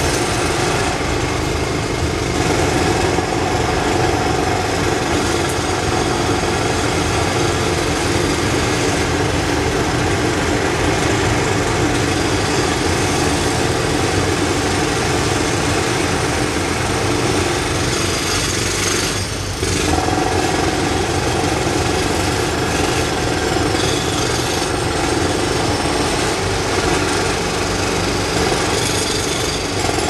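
Several jackhammers hammering concrete together in a continuous, loud racket. It eases briefly a little past the middle, then carries on.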